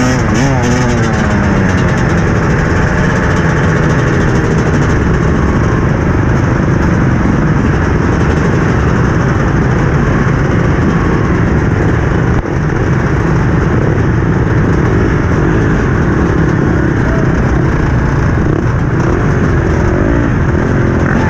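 Several motocross dirt bike engines running and revving as a pack of bikes rolls off at low speed; about a second in, one engine's pitch falls away as it comes off the throttle.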